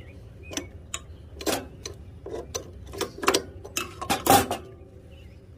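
Irregular metal clicks, taps and clinks as a planer knife is handled and fitted into the blade holder of a Delta TP300 portable planer, with the loudest knocks about four seconds in.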